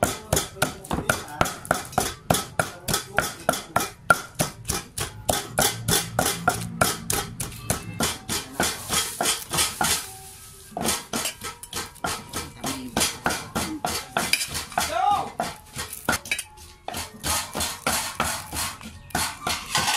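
Pestle pounding shallots, chili and garlic in a mortar, about four strikes a second. After a short break about halfway, a knife cutting and tapping grilled fish on an enamel plate, in more irregular knocks.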